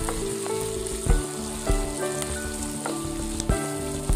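Chopped onion, capsicum, curry leaves and sliced chillies sizzling in ghee in a kadai while being stirred with a wooden spatula, which knocks against the pan several times.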